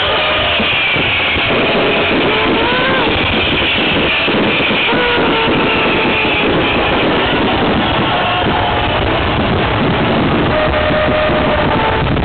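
Fireworks barrage: many overlapping bangs and crackles that merge into one continuous loud rumble.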